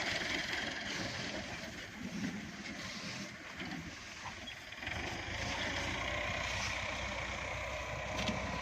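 Tractor engine running, a steady low hum that comes up stronger about five seconds in.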